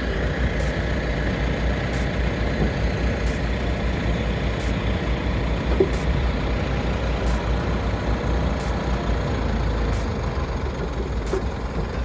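A vehicle engine running steadily with a low rumble. Faint, regular ticks sound about three times every two seconds.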